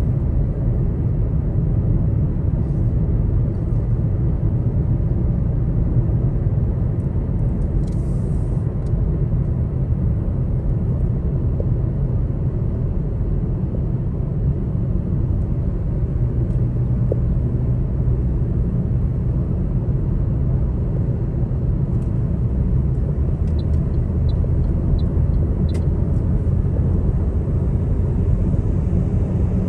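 Steady low rumble of a car driving on a motorway, heard from inside the cabin.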